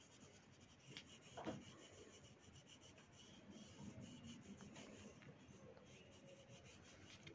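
Faint scratching of a violet Apsara oil pastel rubbed back and forth across paper as a shape is coloured in.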